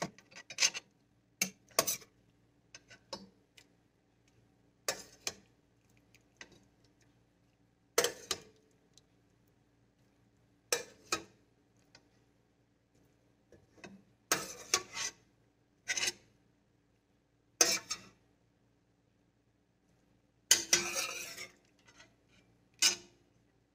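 Stainless steel spoon clinking and scraping against a stainless steel pot and a glass bowl as boiled banana flower pieces are lifted out of the cooking water, in short separate bursts every couple of seconds.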